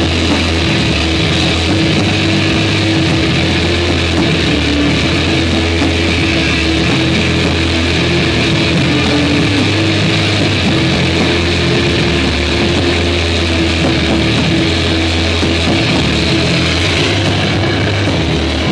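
Live rock band playing loud: electric guitar through an amplifier over drums, dense and steady throughout.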